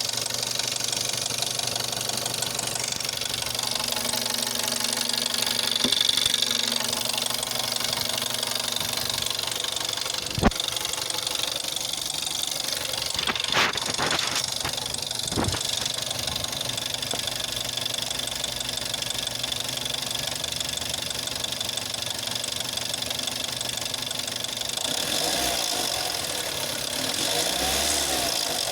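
Volkswagen 1.4 TSI (CAXA) petrol engine running cold with a knocking and rattling noise that the owner ties to the timing chain, although the chain has tested as not stretched. A few sharp clicks come through in the middle, the loudest about ten seconds in.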